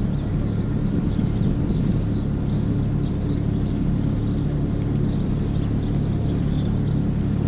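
Steady low machinery drone with a constant hum, with small birds chirping over it again and again.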